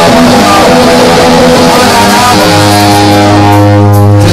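Live rock band playing loudly, guitar to the fore, settling into a long held chord with a heavy bass note about halfway through.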